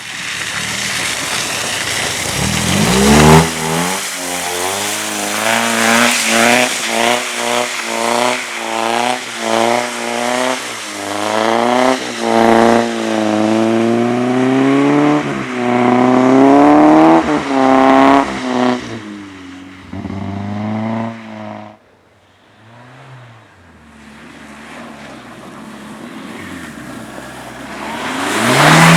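A car engine on a race track revving hard, its pitch sweeping up and falling back again and again under throttle. It fades away about three-quarters of the way through, and another car comes up loudly near the end.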